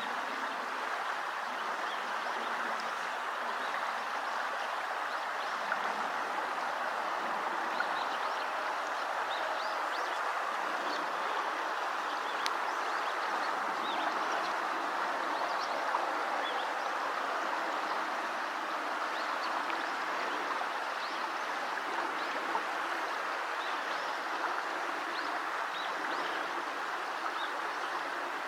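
Steady rush of flowing river water, with faint, scattered short chirps of Eurasian tree sparrows throughout.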